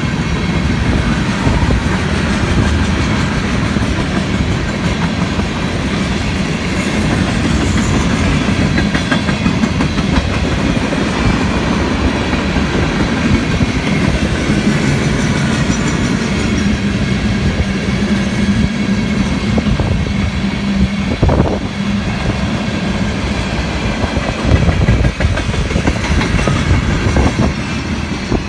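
CSX freight train's cars rolling past, a steady rumble with a continuous run of wheel clicks over the rail joints.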